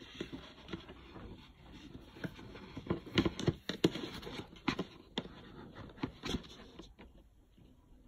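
Handling of the Smart Keyboard's cardboard box and its packaging: scattered scrapes, taps and clicks as the box is worked open, busiest about three to four seconds in.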